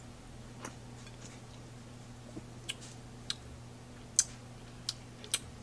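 Sharp, sparse clicks and ticks from a plastic Coca-Cola bottle being handled and its cap screwed back on, the loudest a little past four seconds in. A faint steady low hum runs underneath.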